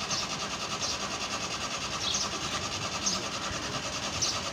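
Suzuki Mehran's three-cylinder carbureted engine running just after a cold start, with a fast, even beat and a short high chirp roughly once a second.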